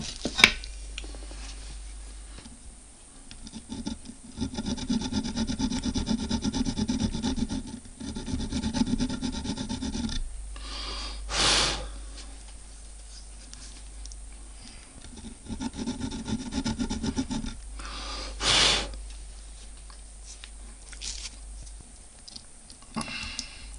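Fast back-and-forth rasping strokes of a small hand file or saw cutting into a small copper part clamped in a bench vise. The strokes come in a long spell and then a shorter one, each followed by a short loud whoosh.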